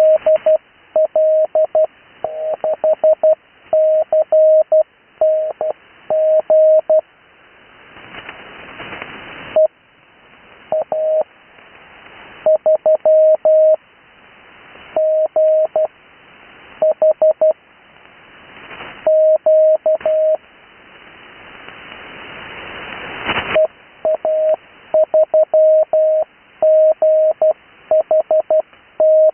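Morse code (CW) heard over a radio receiver: a single steady beep keyed on and off in dots and dashes, sent in groups with short pauses. Band hiss rises in the pauses between groups, swelling loudest in two longer gaps, about a third of the way in and near three quarters of the way through.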